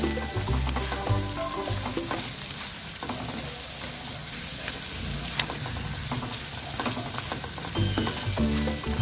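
Fried rice with bacon and hot dog sizzling in a non-stick wok as a spatula stirs and scrapes it, with scattered clicks of the spatula against the pan.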